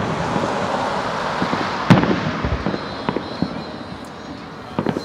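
Aerial fireworks going off: a dense crackle of many small pops, a loud bang about two seconds in, scattered smaller bangs after it, and another loud bang at the very end.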